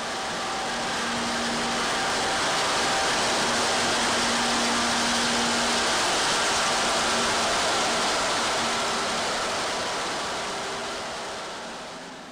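1951 General Electric C0-C0 diesel-electric locomotive running past close by. Its engine noise is loud and even, with a faint steady hum, swelling to its loudest in the middle and fading out near the end.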